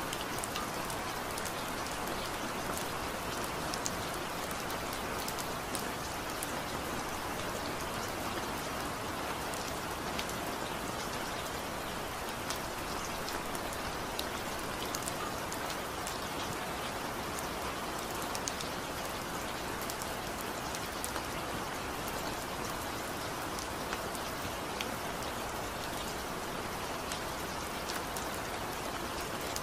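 Steady rain falling, with frequent sharp drop hits.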